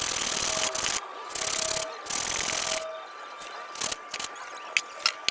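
Three rasping strokes of a hand tool on a workpiece, each under a second, followed by a few light clicks and taps.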